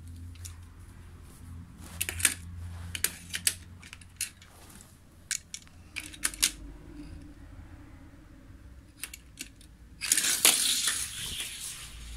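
Scattered light clicks and knocks of plastic toy-car track and die-cast toy cars being handled on a tiled floor, with a louder noisy scraping stretch lasting about a second and a half near the end.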